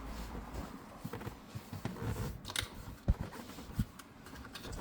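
A vehicle's rear seat being manoeuvred and rolled over into its mounts: scattered light clicks and rustling with a few dull clunks, the sharpest about three seconds in.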